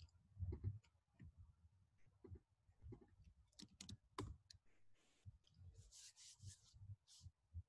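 Faint, scattered clicks of a computer keyboard and mouse being worked, over near silence.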